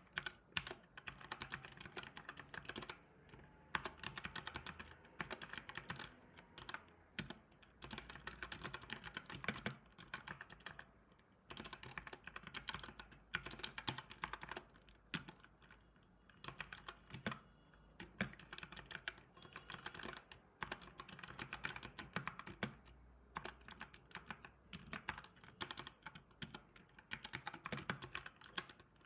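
Typing on a computer keyboard: quick key clicks in runs of a few seconds, broken by short pauses.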